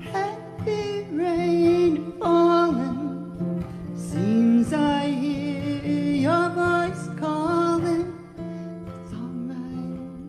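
A woman singing with acoustic guitar accompaniment, in phrases that ease off in the last couple of seconds while the guitar carries on.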